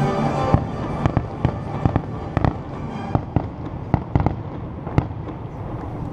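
Aerial firework shells bursting: about a dozen sharp bangs at irregular intervals, thinning out near the end. The show's music stops about half a second in.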